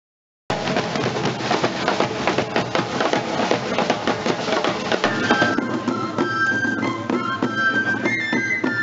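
Street drum corps of snare and bass drums playing a fast, dense beat. About five seconds in it gives way to a high wind instrument playing a melody over drums.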